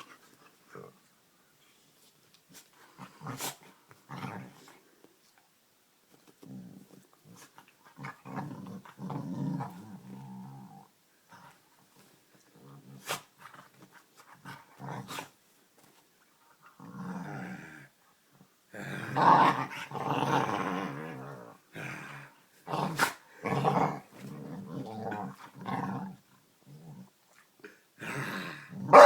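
Pit bull growling in play, with repeated rumbling growls and the 'roars' she makes when being teased. The growls come and go with short pauses and get louder and busier about two-thirds of the way through.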